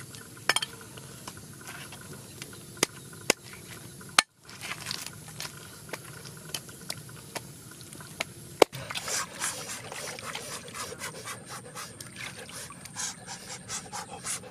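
Cleaver chopping raw chicken on a chopping block: a few sharp, separate chops in the first four seconds. From about nine seconds in, a denser rustling, scraping and sloshing as chicken pieces are rubbed and washed in a bowl of water.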